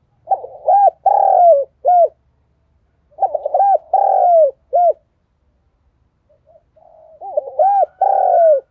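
Spotted dove cooing: three phrases a few seconds apart. Each phrase is a quick run of short notes, then a long coo falling in pitch and one short closing note.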